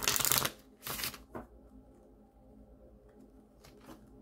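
A deck of oracle cards shuffled by hand: a dense burst of shuffling at the start, two shorter bursts about a second in, and a faint rustle near the end.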